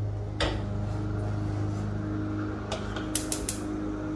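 A metal pot set down on a gas range's grate with a clatter about half a second in, then the stove's spark igniter clicking several times in quick succession as the burner is lit. A steady low engine hum from a lawn mower outside runs underneath.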